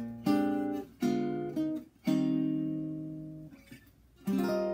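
1934 Epiphone Royal archtop guitar played acoustically, with bronze-wound strings, in a solo chord-melody arrangement. Four chords are struck in quick succession and the fourth rings out for over a second. After a brief lull, another chord is struck near the end and left ringing.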